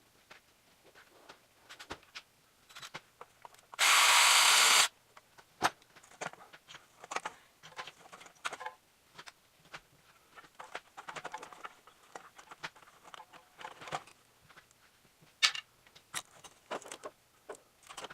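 A handheld power tool runs in one burst of about a second, followed by scattered clinks and knocks of tools and metal parts being handled.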